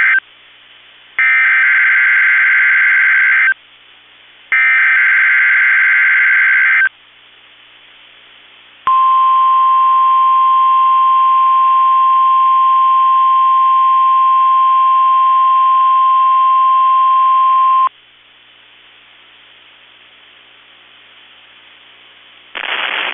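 NOAA Weather Radio Emergency Alert System broadcast for a Required Weekly Test: the end of one burst and then two more bursts of the SAME data header, a harsh warbling screech about two seconds long each with a second of quiet between. After a short pause comes a steady, piercing single-pitch warning alarm tone lasting about nine seconds, then a few seconds of faint radio hiss, and a voice announcement begins right at the end.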